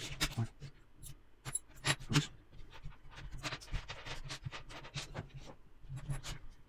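Small metal construction-kit parts (nuts, screws and perforated strips) clinking and clattering as hands pick through them on a wooden table: a run of irregular sharp little clicks.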